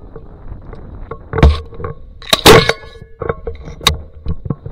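Shotgun blasts at ducks flying overhead: two loud shots about a second apart, followed by a few fainter clicks and pops.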